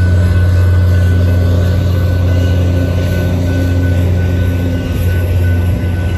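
Diesel-hauled commuter train passing slowly through a grade crossing: the locomotive's engine gives a loud, steady low drone under the noise of the moving cars.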